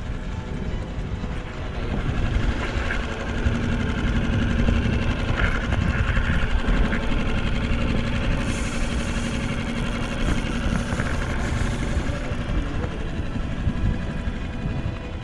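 Boat motor running steadily at low speed: a low rumble with a steady hum that sets in about two seconds in and fades out near the end.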